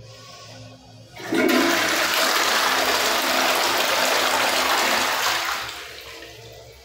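Wall-hung toilet flushing: water rushes into the bowl suddenly about a second in, runs strongly for about four seconds, then tapers off.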